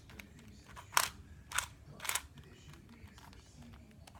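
Plastic puzzle cube being handled and twisted: three short, sharp clicks about half a second apart, starting about a second in.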